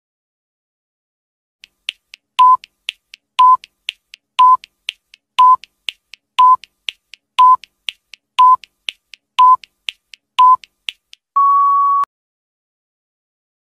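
Countdown timer sound effect: a short electronic beep once a second with soft ticks in between, nine beeps in all, then one longer beep as the timer reaches zero. It starts about two seconds in.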